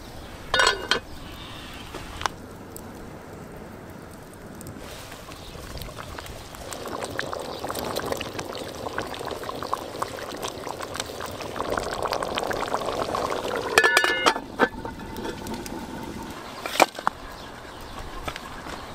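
Water poured into a hot cauldron of browned meat and paprika over a campfire, hissing and bubbling for several seconds. Sharp metallic clanks ring out from the cauldron about half a second in and again around fourteen seconds in.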